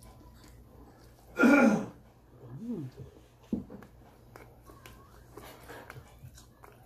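A person coughs or clears her throat once, short and loud, about a second and a half in, while eating very hot and spicy chicken. Then come chewing and lip-smacking with small wet clicks, and a sharper click a couple of seconds later.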